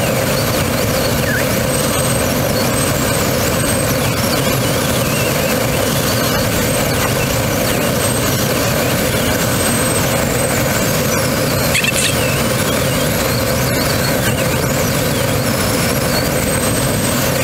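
Steady rush of airflow around a Grob G103 Twin Astir glider in flight, with faint high whistling tones that wander up and down in pitch.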